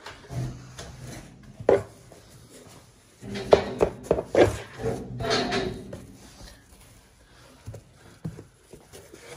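A paintbrush scrubbed and dabbed along the plaster ceiling edge above crown molding, with irregular knocks and rubbing. The loudest cluster of knocks comes about three to six seconds in.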